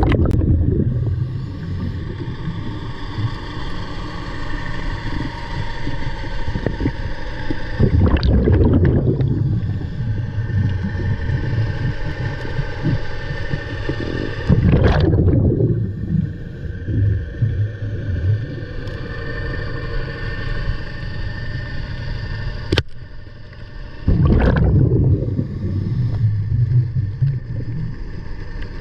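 Water sloshing and rumbling against the microphone, with a louder surge of rushing water about every six to ten seconds, four in all.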